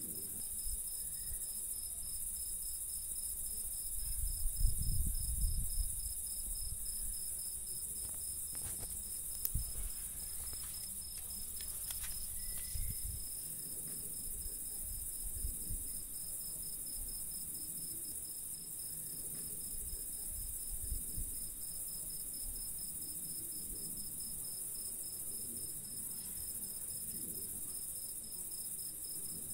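Night chorus of singing crickets and bush-crickets: a steady high-pitched hiss with a rapid, evenly pulsing trill beneath it. A few low bumps and rumbles break in, the loudest about five seconds in.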